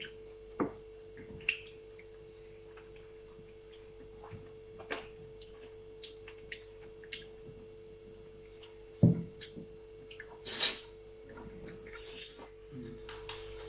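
Eating sounds at a meal of curry and rice: scattered short clicks, smacks and clinks of chewing and of food being taken from plates, over a steady low hum.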